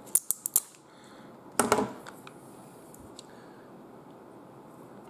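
Apple Watch charger's plastic casing cracking and snapping as pliers break it open: a quick run of sharp cracks at the start, then one louder crunch a little under two seconds in.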